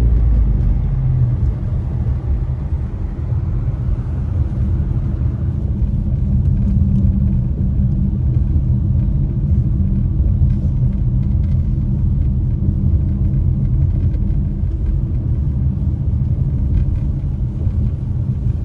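Steady low rumble of a car on the move, heard from inside the cabin: engine and tyre noise while driving.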